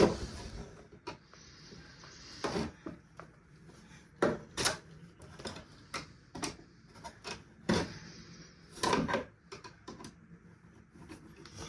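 Irregular clicks and knocks of hard plastic parts and small hand tools: buttons being pried out of the plastic casing of a radio-cassette-CD player.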